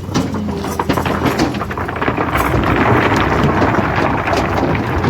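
Heavy diesel machinery running steadily, with a rattling clatter of clicks and rushing noise that swells to a peak about three seconds in and eases toward the end.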